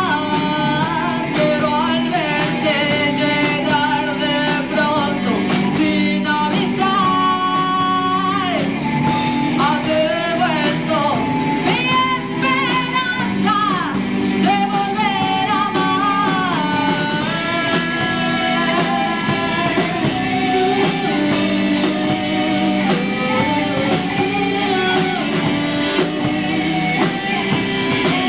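Live rock band playing: a woman singing into a microphone over amplified electric guitars and drums.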